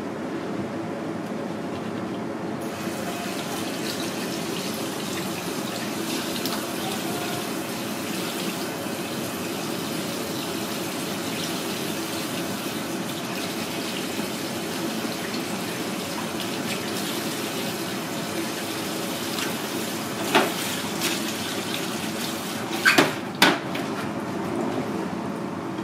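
Water running steadily from a kitchen sink spray hose, rinsing shellfish meat on a cutting board. A few short sharp knocks come near the end.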